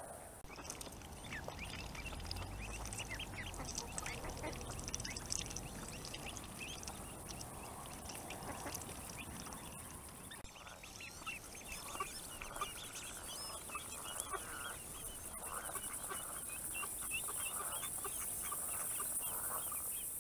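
Duck calling, among many short, repeated bird calls.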